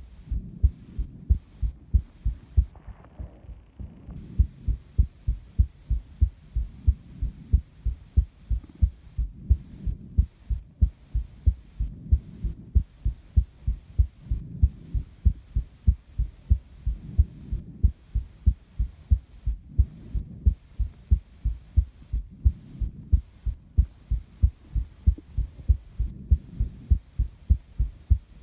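A person's heart sounds recorded close to the body: a steady, even heartbeat of paired low thumps (lub-dub) throughout. Breathing comes through underneath as a soft hazy rise and fall every few seconds.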